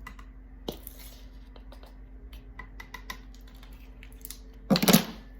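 Small clicks and taps of a measuring spoon against a tea powder container while a half teaspoon is scooped out, with a louder, short scraping clatter just before the end.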